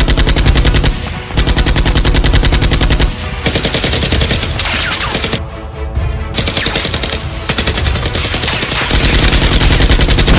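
Dubbed-in machine-gun sound effects standing in for the toy blasters' fire: several long bursts of rapid automatic fire with brief breaks between them, over background music.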